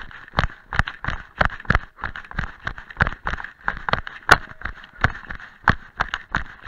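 A trail runner's quick footfalls on a dirt and leaf-covered path, about three strides a second, picked up by a chest-harness camera that jolts with each stride. One sharper click about four seconds in.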